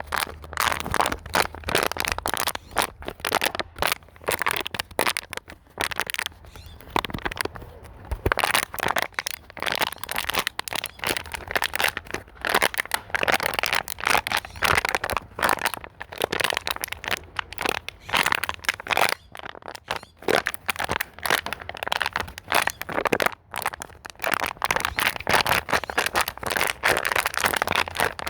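Plastic bottle being squeezed and crushed by hand, crinkling and crackling in quick irregular bursts throughout.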